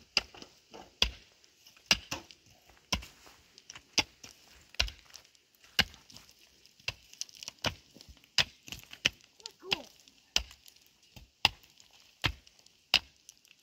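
A hand tool striking repeatedly with sharp, crisp blows: a heavier strike about once a second, with lighter taps between.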